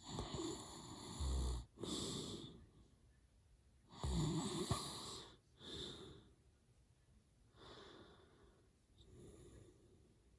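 A sleeping man snoring hard: two loud snores about four seconds apart, each with a deep low rattle near its end and followed by a shorter breath. The breathing turns softer in the last few seconds.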